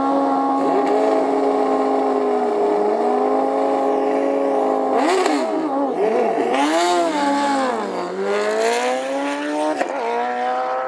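Drag-racing sport motorcycles held at steady high revs on the start line, dipping briefly about two seconds in. About five seconds in they launch and accelerate away through the gears, the engine pitch climbing and then dropping at each upshift.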